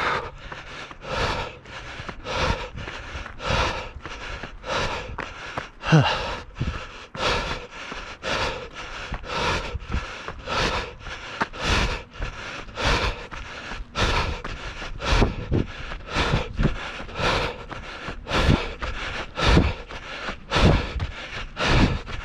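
A runner's hard breathing in a steady rhythm, about two breaths a second, with footfalls thudding underneath.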